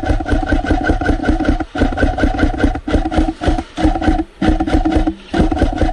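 Airsoft electric guns firing full-auto in repeated bursts of about a second, a fast rattling buzz with short breaks between bursts.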